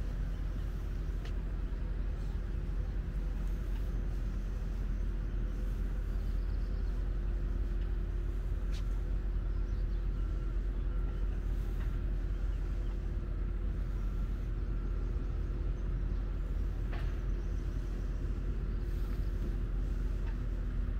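A steady low mechanical hum and rumble, like an engine or machine running without change, with a few faint ticks over it.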